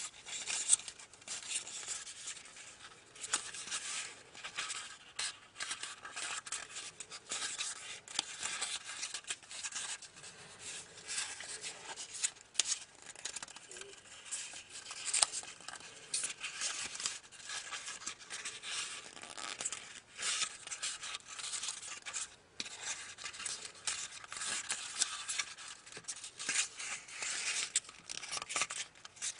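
Origami paper rustling and crinkling as it is folded and creased by hand, with many small crackles throughout.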